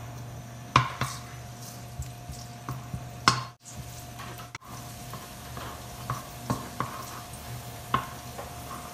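Minced garlic sizzling in hot oil in a nonstick wok while a wooden spatula stirs it, knocking against the pan now and then. A steady hum runs underneath.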